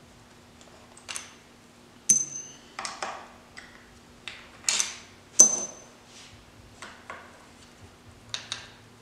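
Steel T45 transmission case bolts clinking as they are taken out and set down on a pile of bolts: a string of sharp metallic clinks, two of them, about two and five seconds in, ringing brightly.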